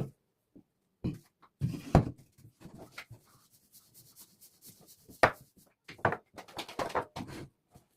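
Irregular knocks, clicks and clatter of hard objects being handled, with the loudest knocks about two seconds in, just past five seconds, and a busier run of them near the end.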